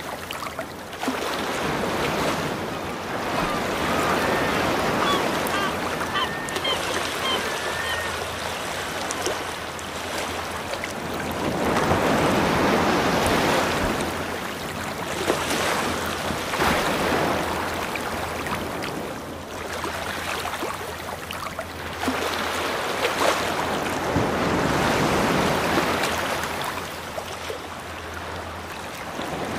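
Sea waves washing onto a shore, the surf swelling and fading every few seconds, with a few faint bird calls in the first third.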